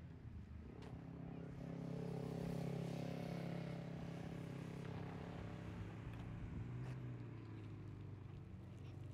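Motor vehicle going by, its engine humming steadily and its noise swelling to a peak about two to three seconds in before easing off.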